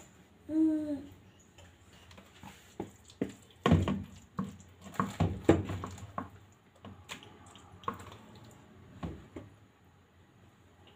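Irregular clinks and knocks of a spoon and bowl being handled, clustered in the middle and fading out near the end. Just before them, near the start, there is a brief hum-like voice sound.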